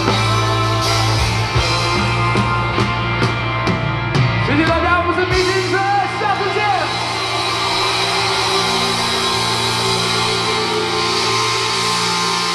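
Live rock band playing: drums and bass pounding for the first few seconds, then a voice calling out in long gliding notes over a sustained chord that rings on.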